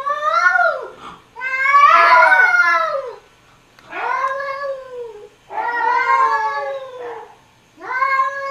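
Cats yowling in a stand-off: five long, drawn-out caterwauls that rise and fall in pitch, with short pauses between them. The loudest comes about two seconds in.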